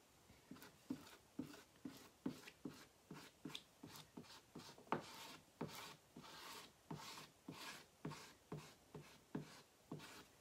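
Faint, rhythmic scraping as an applicator spreads chalk paste across a silk-screen transfer on a chalkboard, in short back-and-forth strokes about two a second.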